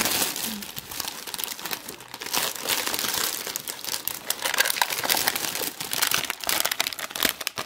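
Aluminium foil wrapping of a chocolate Easter egg crinkling and rustling as hands dig around inside it, with a dense, irregular crackle. Near the end the small plastic bag holding the egg's surprise crinkles as it is pulled out.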